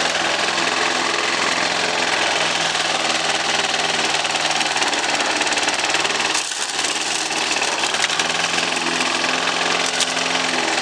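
Craftsman walk-behind lawn mower's small petrol engine running steadily while cutting grass, with a brief dip in the sound about six and a half seconds in.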